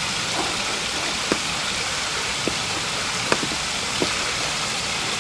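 Steady, even rushing noise with a few faint short ticks.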